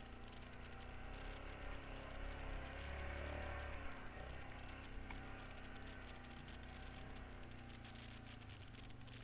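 Quad bike engine running under way, heard from on board, its note swelling louder for a second or so about three seconds in.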